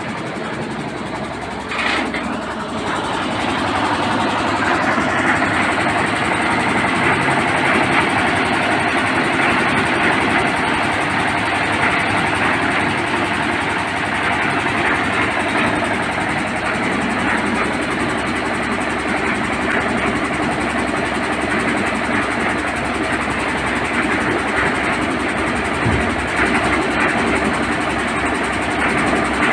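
Diesel engine of a concrete mixer with lift, running steadily. A knock about two seconds in, after which it runs louder.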